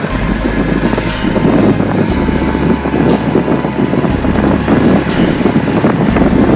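MH-65 Dolphin helicopter running on the ground with its rotor turning and twin turbine engines at power while it taxis, a steady loud rotor and engine noise.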